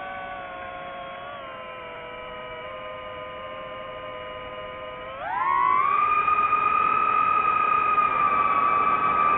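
DJI FPV drone's motors and propellers whining steadily, then rising sharply in pitch and getting louder about five seconds in as the motors speed up.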